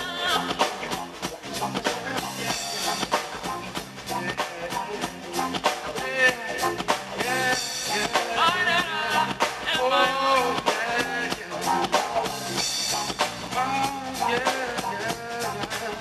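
Live reggae band playing: a male singer over electric guitar and drum kit, with a steady drum beat.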